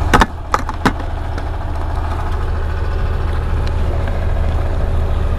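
Steady low hum like an idling engine, with three sharp clicks in the first second as a fish is handled on a plastic tackle box.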